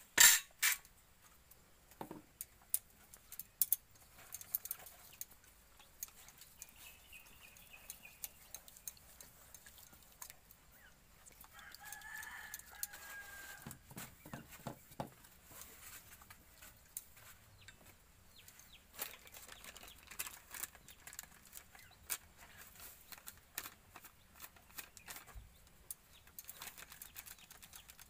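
Scattered light clicks and taps of a knife and spoon against a steel bowl and metal plate as onion is cut and beaten eggs are mixed, the loudest right at the start. A chicken clucks now and then in the background, most clearly around the middle.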